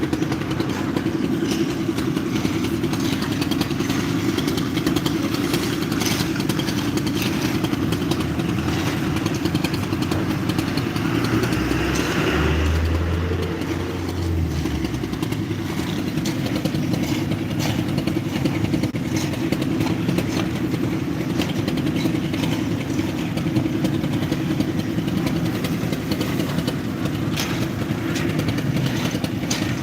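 Machinery engine running steadily at a concrete pour, with frequent clattering knocks over it. A deeper low rumble swells for a few seconds about twelve seconds in.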